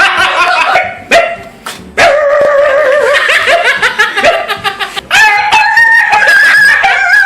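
A man imitating a dog with his voice: long, drawn-out dog-like calls that waver in pitch, with a short break about a second in.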